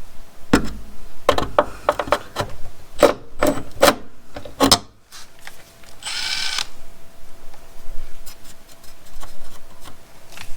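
Hand tool scraping and rasping on the rough edge of a freshly drilled hole in car-body sheet metal, deburring it in short, irregular strokes, with a brief high whir about six seconds in.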